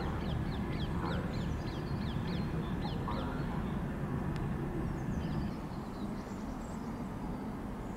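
A bird calling in a quick run of short falling chirps, about three a second, that stops about three seconds in, with a few fainter high chirps later. Underneath is a steady low rumble.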